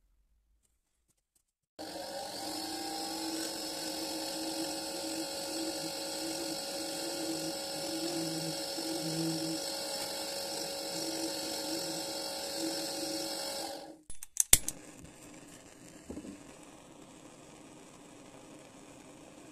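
A small electric motor spins a keyed drill chuck holding a small metal ball, with a steady whine that starts about two seconds in and stops abruptly after about twelve seconds. A few sharp clicks follow, then the quiet steady hiss of a gas torch flame.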